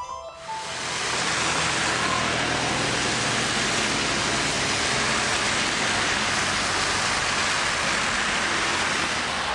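Steady hiss of dense road traffic: cars and vans driving on a wet, slushy multi-lane road, their tyres running through the water.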